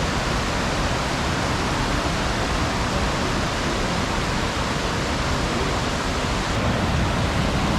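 Waterfall cascades running at full flow, a steady rushing of water over the rock steps.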